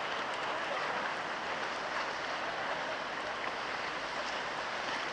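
Steady rushing noise of a storm at sea: wind and water blended into an even hiss that holds at a constant level, with a few faint ticks.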